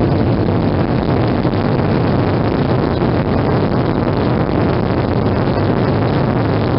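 Boeing 737 jet engines at takeoff thrust, heard inside the cabin: a loud, steady roar as the airliner accelerates down the runway.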